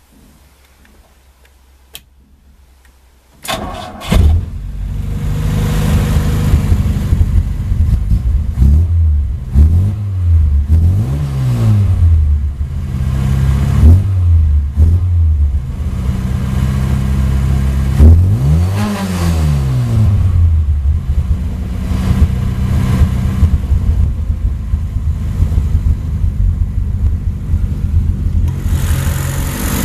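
A Lada 2107's 1.6-litre four-cylinder engine is cranked by the starter and catches almost at once, then runs with the throttle blipped several times, the revs rising and falling, most strongly about a third and two-thirds of the way in. A single click comes just before the start.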